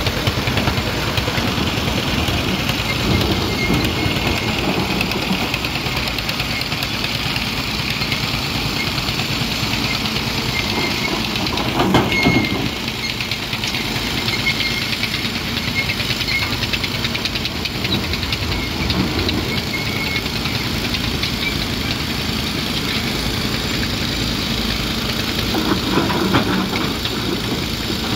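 Hyundai 215 hydraulic excavator's diesel engine running steadily as it works, with a brief louder clatter about twelve seconds in and again near the end.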